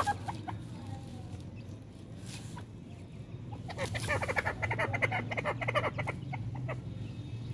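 Grey francolin clucking. A few scattered notes come first, then from about four seconds in a rapid run of short clucking calls lasts roughly two and a half seconds.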